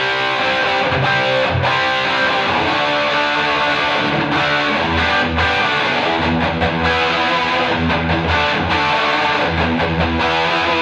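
Electric guitar riffing in a classic-rock style with crunchy distortion: a Gibson SG played through a Ryra Klon overdrive pedal into a 1969 Marshall JMP 50 valve amp and a 1x12 Celestion Greenback speaker. The chords and riffs are picked in a steady rhythm.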